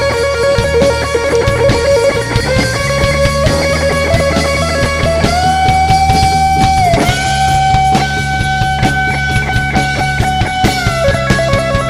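Live rock band playing loudly: an electric guitar holds long sustained lead notes that step up in pitch and later drop back, over bass and drums.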